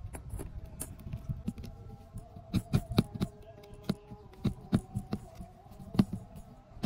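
Irregular small metallic clicks and taps as a screwdriver tip and brass socket contact strips are pressed and worked inside a plastic power-strip housing. The louder clicks come in a cluster near the middle and once more about six seconds in.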